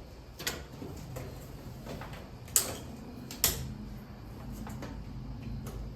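A few sharp knocks and lighter clicks of someone climbing a ladder, the two loudest about a second apart near the middle.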